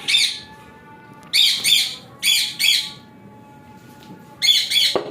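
Caged parrots squawking: short harsh screeches in quick runs of two or three, with a faint thin tone between them.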